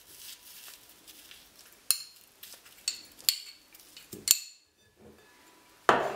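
A spoon clinking and tapping against a small ceramic dish and a glass bowl while chopped coriander and parsley are scraped out: several separate sharp clinks, the loudest near the end.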